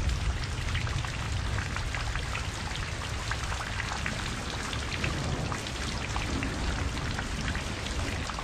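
Steady rain falling, with many separate drops heard through the even hiss and a low rumble underneath.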